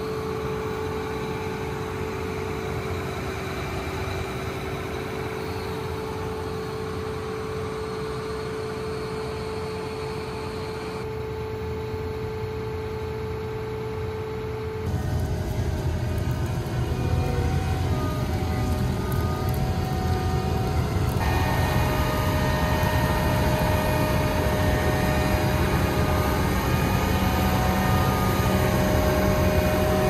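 Harvest machinery engine running steadily with a low rumble and a few steady whining tones. About halfway through the sound changes abruptly, becoming louder and deeper, and the tones shift again a few seconds later.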